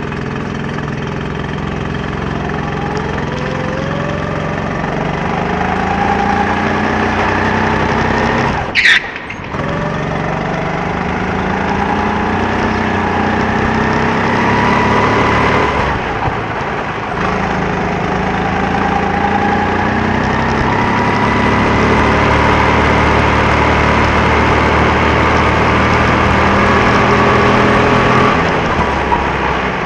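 Go-kart engine driven flat out, its pitch climbing as it accelerates and dropping briefly twice when it eases off. A sharp, brief noise about nine seconds in is the loudest moment.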